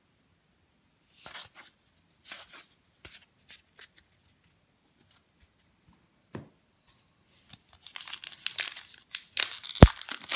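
A few soft swishes of trading cards being handled and a single tap about six seconds in. From about eight seconds, a card pack's wrapper is crinkled and torn open, getting loud, with one sharp snap near the end.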